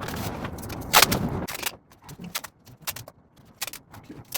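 Tape being pulled off the roll and torn, with a loud rip about a second in, followed by scattered light clicks and taps of handling.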